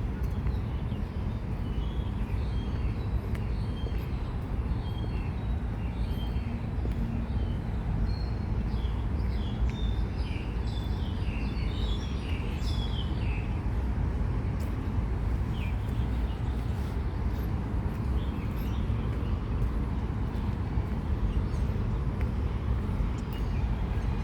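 Outdoor ambience: a steady low rumble of traffic, with birds chirping many times over it, busiest in the first half.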